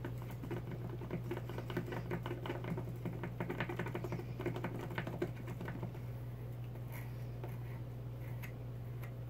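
A small bottle of craft medium being shaken by hand: a rapid run of light rattling clicks for about five seconds, then it stops. A steady low hum runs underneath.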